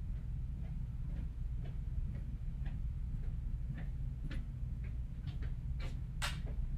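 Footsteps, about two a second, over a steady low room hum, louder and sharper near the end as they come closer.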